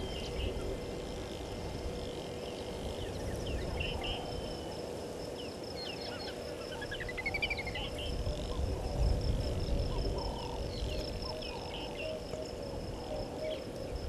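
Outdoor bush ambience. An insect trills steadily in a fast, high pulsing note over a steady lower hum, while birds give scattered short chirps, including a quick rising run of notes about seven seconds in. A low rumble swells around nine seconds in.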